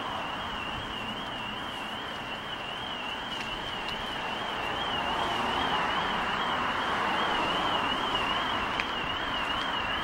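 A high-pitched electronic alarm warbling steadily up and down, a couple of times a second, over a hiss of street traffic that grows louder about halfway through.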